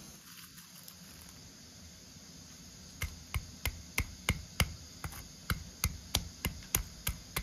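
Wooden pestle pounding shelled walnuts in a stone mortar: a regular series of dull knocks, about three a second, starting about three seconds in.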